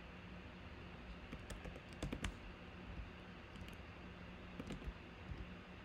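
Computer keyboard typing: scattered keystrokes in short runs, the loudest run about two seconds in.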